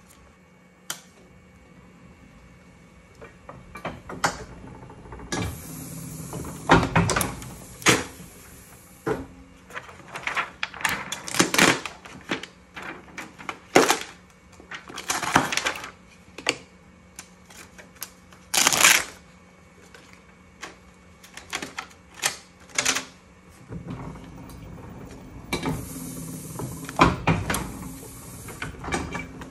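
Chandler & Price platen letterpress being handled: irregular clicks and clanks from its iron parts, with paper and card sliding and rustling on the platen, twice in longer stretches.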